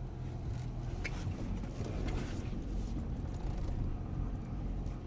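Dodge Grand Caravan creeping forward at low speed, its engine and tyres a steady low rumble heard from inside the cabin, with faint light ticks and hiss between about one and three seconds in.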